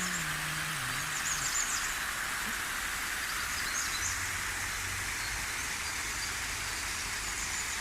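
River water rushing steadily, with small birds chirping faintly over it now and then.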